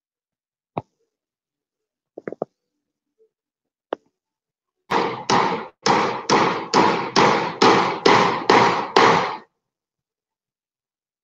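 Hammering on corrugated zinc roofing sheets: a few light taps, then a steady run of about ten hard blows at a little over two a second, each ringing briefly. The sheets are being nailed onto the coop's roof frame.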